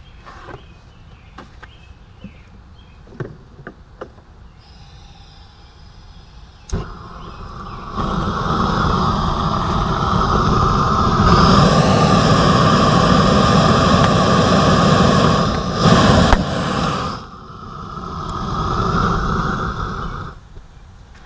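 Propane torch played on aluminium beer and soda cans. A sharp pop comes about a third of the way in, then a loud, steady rushing roar with a faint whistle, broken by a louder burst as a heated can gives way. The roar cuts off abruptly near the end.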